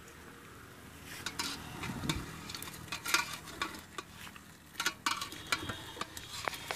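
Metal ladle stirring and scooping in an aluminium pot of chicken boiling in tender coconut water, scraping and clinking irregularly against the pot's sides, several knocks standing out over a low steady bubbling hiss.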